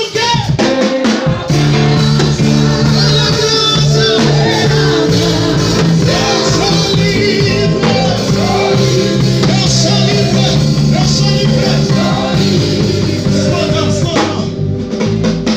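A song playing: singing over band accompaniment, fading down near the end.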